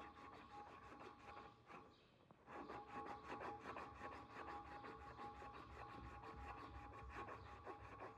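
Strip of aluminium oxide abrasive cloth pulled back and forth across a wooden sword handle, sanding it: a faint, fast, rhythmic scratching of about seven strokes a second, with a short break about two seconds in.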